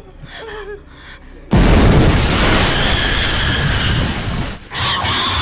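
Film sound effect: a sudden loud boom about a second and a half in, its noise lasting about three seconds, then a shorter second burst near the end.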